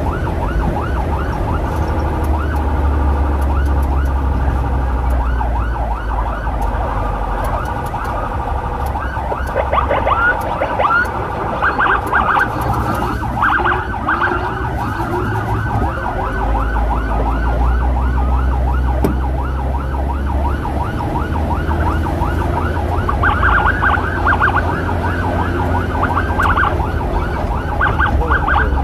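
Emergency sirens in a fast, repeated yelp, several rising-and-falling sweeps a second, from an ambulance and its motorcycle escort. The sirens grow louder about a third of the way in and again near the end, over a steady low rumble of the motorcycle and wind.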